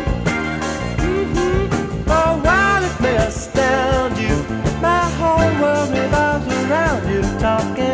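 Music with no sung words: a lead line sliding and bending between notes over a steady bass part and a regular cymbal beat.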